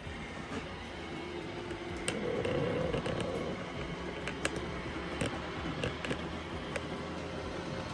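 iRobot Roomba i7+ robot vacuum running on carpet: a steady motor and brush hum with scattered light clicks, swelling louder for a second or so about two seconds in.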